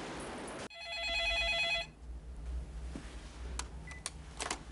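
A steady rush of noise cuts off abruptly, and a telephone rings once: an electronic, slightly warbling ring lasting about a second. Quiet room sound follows, with a few faint clicks.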